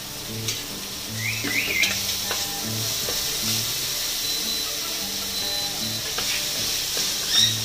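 Frozen green peas frying in a little oil in a kadhai, sizzling steadily, with a wooden spatula stirring and ticking against the pan. The sizzle grows stronger about a second in.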